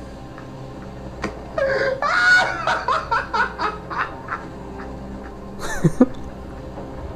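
A man's loud Joker-style cackling laugh, a string of rising and falling laughs, with a falling vocal sweep near the end. Faint steady background music lies underneath.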